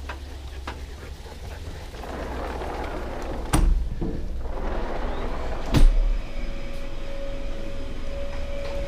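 Sliding glass patio door being opened and shut, with two sharp knocks about three and a half and six seconds in; a steady hum follows the second knock.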